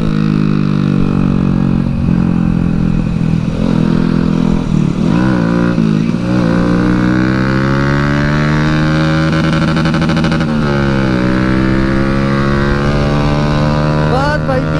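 Motorcycle engine with an Akrapovic aftermarket exhaust, ridden at speed. Its pitch falls off, climbs again through the gears about five seconds in, eases back, and rises once more after a drop about ten seconds in, over a constant rumble of wind on the microphone.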